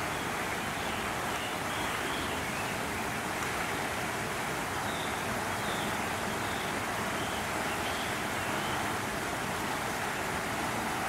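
Steady outdoor rushing noise, with a few faint, short high chirps scattered through it.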